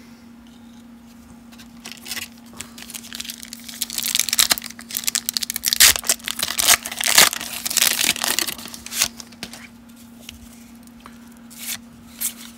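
Foil wrapper of a 1992 Upper Deck baseball card pack being torn open and peeled off the cards: a run of crinkling and tearing from about three seconds in until about nine and a half seconds, with softer handling clicks before and after.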